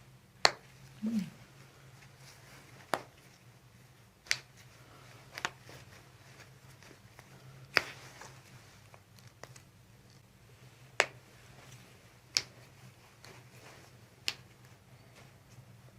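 About nine sharp single clicks, spaced irregularly a second to three seconds apart, over a low steady hum.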